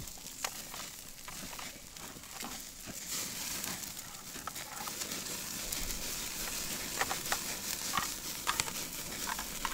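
Tomahawk steak sizzling over hot charcoal while being basted with melted garlic butter: a steady hiss with scattered crackles and pops.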